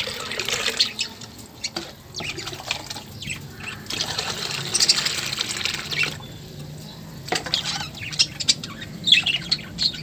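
Water poured into a glazed clay water bowl, splashing in two spells, the second from about four to six seconds in. Budgerigars chirp and squawk throughout, more busily near the end.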